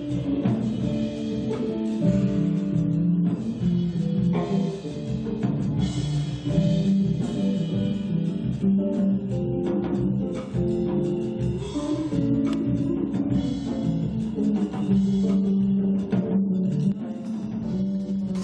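Live instrumental jazz-fusion band playing: electric guitar, electric bass and drum kit together.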